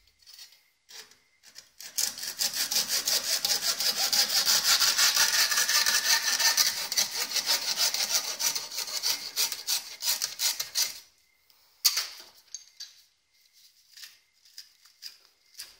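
Hacksaw cutting through a stainless-steel braided water-heater hose next to its fitting, in quick, even back-and-forth strokes for about nine seconds. The sawing stops, and a sharp knock follows about a second later.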